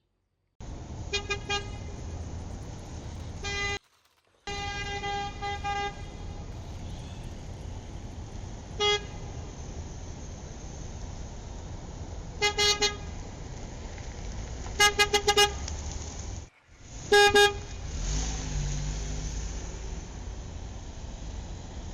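A horn sounding short beeps, some single and some in quick runs of three to five, over a steady background rumble. The sound cuts out briefly twice.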